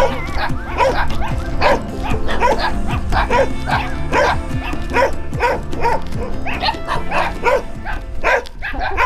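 Background music: sustained low chords under a recurring pattern of short pitched accents.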